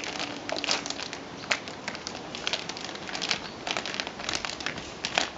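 Clear plastic bag crinkling in short, irregular crackles as a reverse osmosis membrane cartridge is pulled out of its wrapping.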